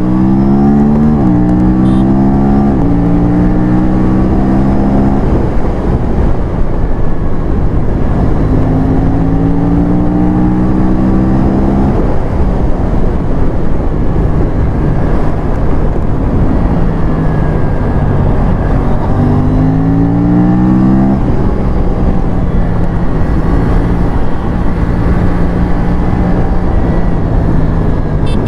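Aprilia parallel-twin sport bike accelerating hard through the gears. Its engine note rises and drops back at each upshift: three quick shifts at the start, a longer pull in the middle and another near the end, with steadier cruising between them. Heavy wind rush lies under it all.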